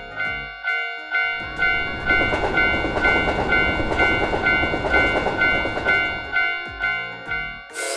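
Japanese railroad crossing warning bell going "kan-kan", a bell-like ding struck about twice a second. A train's rumble swells up under it about a second and a half in and fades out near the end.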